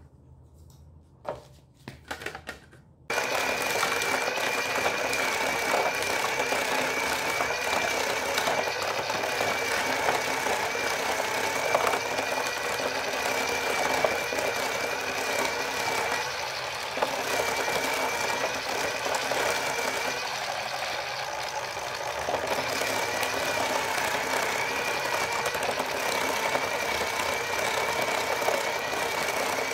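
A few knocks, then about three seconds in the electric motor of a homemade onion slicer switches on and runs steadily with a high whine. Its bladed wooden disc slices onions as they are fed through the chute.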